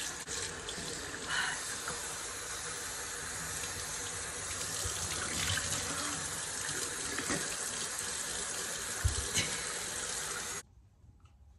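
Bathroom sink tap running in a steady stream, with a few louder splashes as a face is washed in it; the tap is shut off abruptly near the end.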